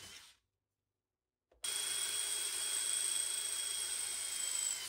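Power drill running steadily as it drills holes in an aluminium mounting plate. It stops just after the start, starts again about a second and a half in, and its pitch dips slightly near the end as it slows.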